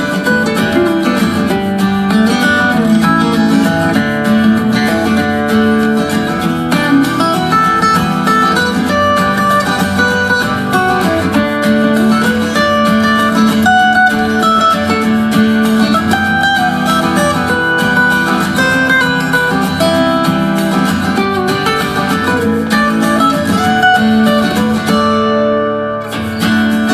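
Acoustic guitar music with plucked and strummed notes, played back through a TCL S642W 2.1 soundbar and picked up by a microphone in the room. Near the end the music briefly dips and loses its treble.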